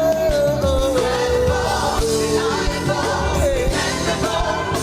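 Gospel praise song with a singer holding a long, gliding note over keyboard and drum backing, with choir-like voices.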